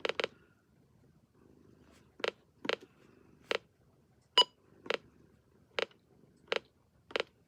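About ten short, sharp clicks at irregular spacing: buttons pressed on a weather radio while it is checked for a stored alert message. One press about four and a half seconds in gives a short beep. A faint, low cat purr runs underneath.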